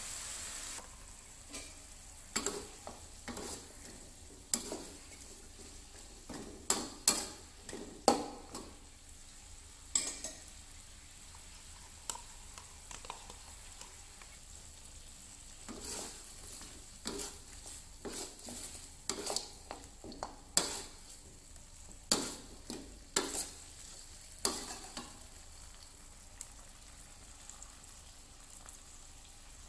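Chicken pieces in a thick sauce sizzling in a wok while a utensil stirs them, scraping and knocking against the pan in irregular strokes. The sizzle is a steady hiss, louder in the first second.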